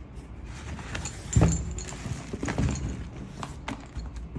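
Handling noise: a few hard knocks and clunks, the loudest about a second and a half in, with several lighter ones after it.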